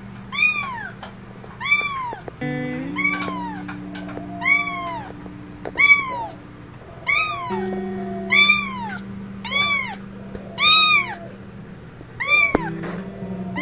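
Young kitten meowing over and over: about ten high meows roughly a second apart, each rising then falling in pitch. Background music with held low notes plays underneath.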